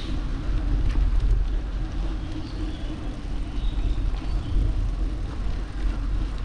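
Wind buffeting the microphone over the tyre noise of a bicycle rolling on wet asphalt: a steady low rumble that swells and dips.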